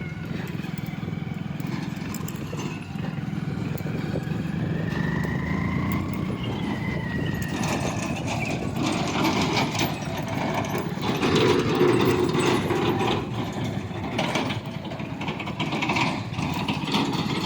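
JCB backhoe loader's diesel engine running steadily. A whine rises and then falls a few seconds in, and from about halfway through there is irregular clattering over the engine.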